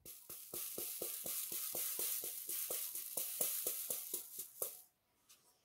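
Square resin diamond-painting drills rattling and clicking in a plastic grooved sorting tray as it is shaken to line them up in rows, a quick run of about six clicks a second that stops near the end.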